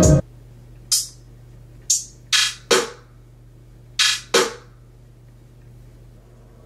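A beat playing through studio monitors stops just after the start. Then come six single short percussion samples, each a sharp hit that dies away quickly, some falling in pitch, spread over about three and a half seconds, with a faint steady hum in between.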